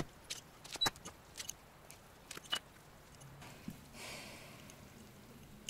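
Scattered light clicks and taps of a small knife and a glass jar used as a round cutter on a sheet of pastry, with a brief soft rustle about four seconds in.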